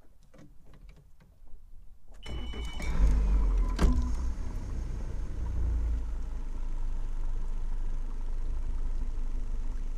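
A boat motor starts about two seconds in with a brief whine, then keeps running with a steady low rumble. There is one sharp click a second or so after it starts.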